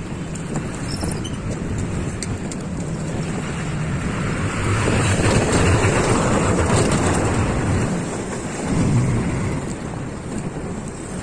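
Street traffic noise heard from a moving bicycle, with wind rushing over the microphone; it grows louder for a few seconds in the middle as a vehicle passes close by.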